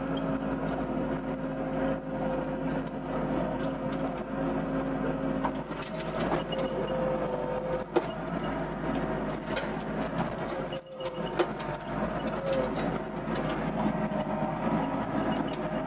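Doosan DX55 mini excavator working, its engine and hydraulics holding two steady tones, with scattered clicks and knocks and a brief drop about eleven seconds in. Among these sounds is an unexplained noise from the machine that the operator cannot trace; he notes that the cab door is not vibrating.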